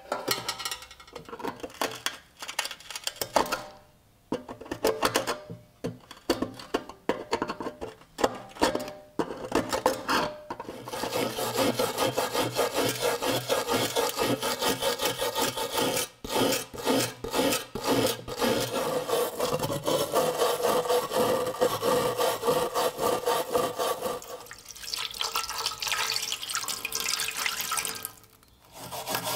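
Corroded iron axe head being scraped with a flat hand tool to break off its corrosion crust. Separate scrapes come first, then about ten seconds in they run together into steady rapid rasping, with a short break near the end.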